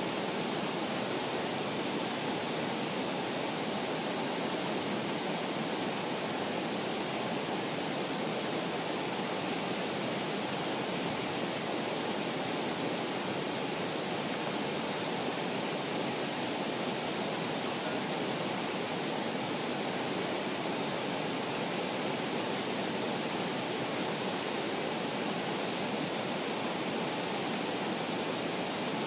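Waterfall and rocky creek rushing, a steady, unbroken roar of falling water.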